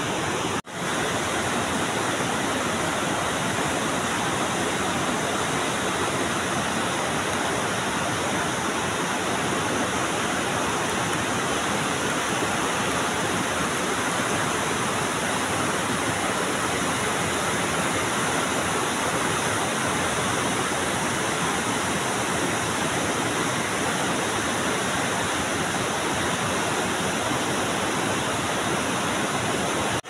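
River rapids rushing steadily over and between boulders, a constant roar of white water. The sound drops out for an instant about half a second in.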